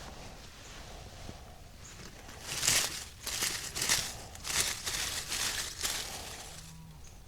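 Dry leaf litter crunching and rustling in a run of irregular bursts for a few seconds, starting about two and a half seconds in.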